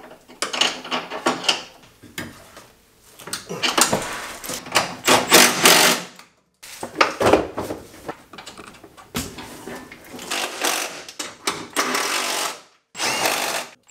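Cordless power tool running in several short bursts, driving in the mounting bolts of a car's radiator and condenser module, with abrupt breaks between bursts.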